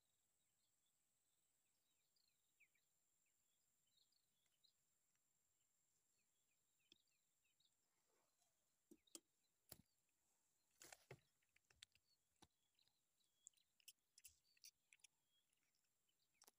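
Near silence: faint, scattered bird chirps, with sharp clicks and taps in the second half.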